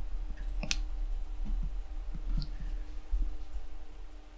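Small screwdriver tip clicking and scraping against the rubbery case of a GoPro Hero 5 Session while prying at its seam, with handling rumble from the camera being gripped; one sharper click comes about a second in.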